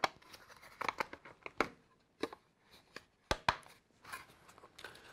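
Hard plastic playset parts clicking and knocking as they are handled and pressed into place, an irregular scatter of sharp clicks, with two close together about three and a half seconds in.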